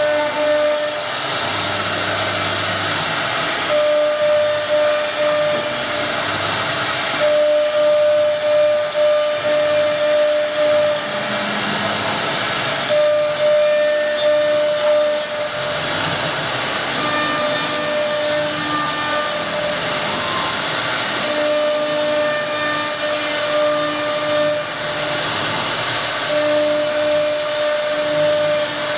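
CNC wood router running, a steady hissing machine noise of the spindle and cutting. Over it a steady tone sets in and breaks off every second or few.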